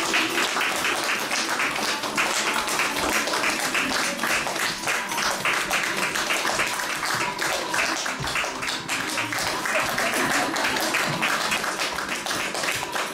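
A small audience clapping along in a steady rhythm, with music playing underneath.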